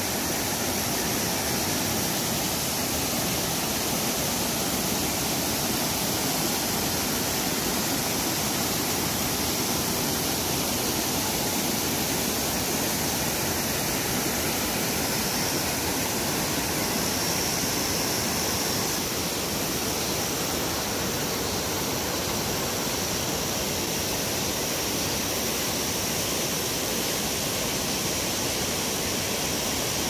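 Mountain stream rushing over rocks and down small cascades: a steady, even rush of water.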